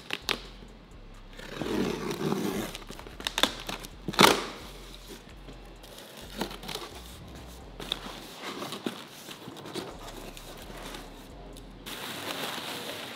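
A cardboard shipping box being opened by hand: packing tape slit and torn, flaps pulled back, and the plastic wrapping inside rustled. A few sharp knocks punctuate it, the loudest about four seconds in.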